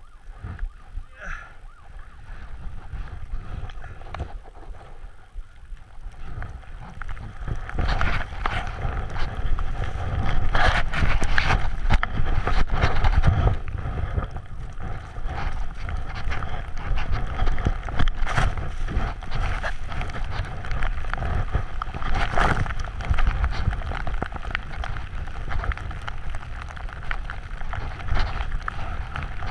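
Wind buffeting a helmet- or body-mounted action camera's microphone, with a snowboard hissing and scraping through deep powder. It grows much louder about seven seconds in as the ride picks up speed.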